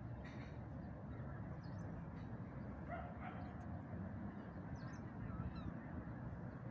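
Birds calling outdoors over a steady low rumble: short high chirps scattered throughout, and one brief, lower held call about three seconds in.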